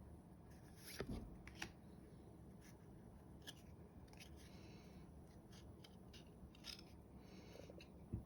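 Faint handling of trading cards: soft rustling with a few short, sharp clicks as the cards are slid and flipped over.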